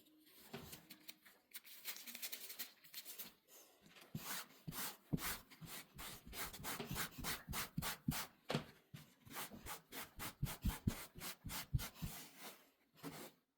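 Rapid repeated rubbing strokes of a hand-held cleaning tool dragged back and forth over a surface to lift pet hair.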